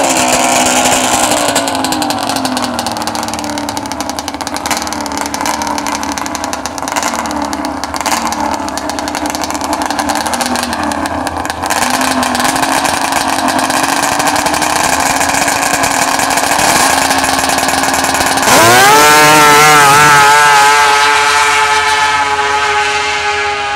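Drag-racing snowmobile engine running at lower, uneven revs at the start line, then about three-quarters of the way through it launches at full throttle: a sudden loud jump with the pitch rising and then holding at a high steady note, fading as the sled pulls away down the strip.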